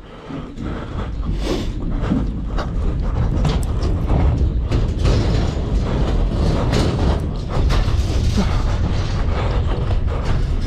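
Footsteps clanging irregularly on the steel grating walkways on top of freight cars, over a heavy low wind rumble on the microphone as the wearer moves along the car roofs; the rumble builds over the first couple of seconds.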